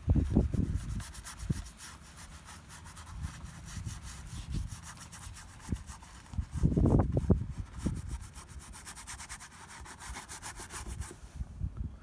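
Paintbrush rubbing and scrubbing oil paint onto a stretched canvas in quick repeated strokes. There are a couple of louder low bursts, one just at the start and one about seven seconds in. The strokes stop near the end.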